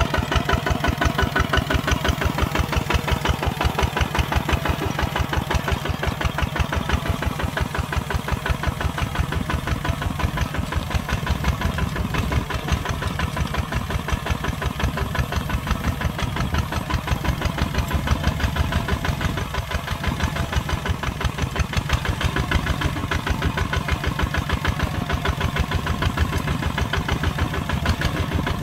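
Kubota ZT140 single-cylinder diesel engine of a tractor running steadily while plowing, an even rapid beat with no let-up.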